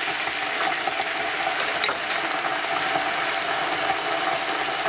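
Browned chopped onions frying in hot olive oil in a pot, a steady sizzle with fine crackling, just as ginger-garlic paste goes in.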